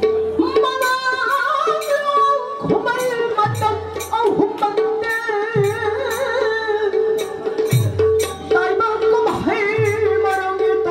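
Indian-style music: a steady drone under a wavering, sung-like melody, with deep drum strokes that slide down in pitch every two seconds or so.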